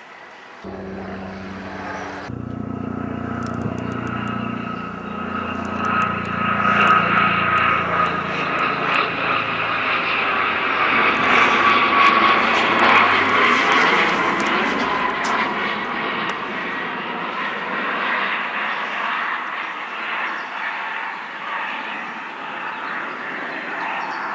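Aircraft flying past overhead: a steady rushing engine sound with a high whine that drops slightly in pitch. It grows to its loudest around the middle, then eases off.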